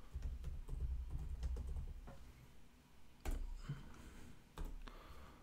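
Quiet typing on a laptop keyboard: scattered key taps, with a couple of louder strokes about three seconds in and again near the end.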